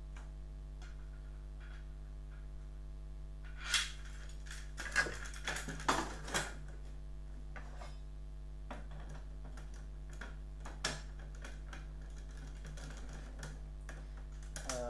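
Plastic and metal parts of a battery cell-holder bracket clicking and knocking as they are handled and fitted together: a few scattered clicks, the busiest cluster about four to six seconds in, over a steady low hum.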